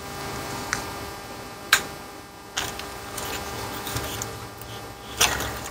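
A handful of sharp clicks and knocks from a bare instrument-cluster circuit board being picked up and turned over on a workbench, the loudest a little under two seconds in, over a faint steady hum.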